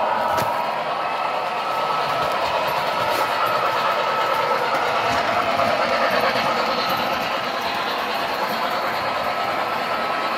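O scale model train running along its track: a steady motor whine over the rolling noise of metal wheels on the rails, with a few faint clicks.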